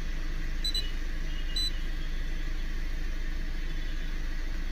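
Tata Nexon's 1.5-litre four-cylinder diesel engine idling steadily, heard from inside the cabin. Two short high beeps sound about a second apart near the start.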